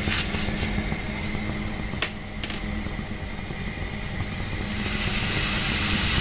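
Gas stove burner running steadily under a steel saucepan of milk tea, with two sharp clicks of the stirring spoon against the pan about two seconds in. The tea's bubbling hiss swells near the end as it comes up to the boil and froths.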